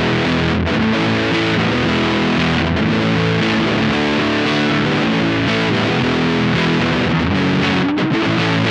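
Distorted electric guitar playing ringing chords: a Squier Paranormal Offset Telecaster with its pickups wired in parallel, run through a Bookworm Effects Diving Belles drive pedal.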